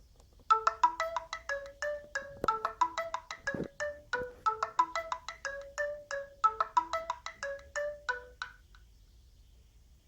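Alcatel 3088 phone ringtone: a quick melody of short struck notes, a phrase repeated over and over, starting about half a second in and stopping about a second before the end.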